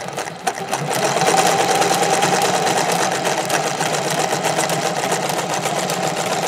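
Vintage sewing machine sewing a zigzag satin stitch, a fast, even clatter of needle strokes. It comes up to speed over the first second, then runs steadily.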